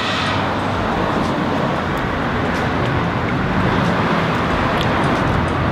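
Steady street traffic noise, the even rush of passing vehicles.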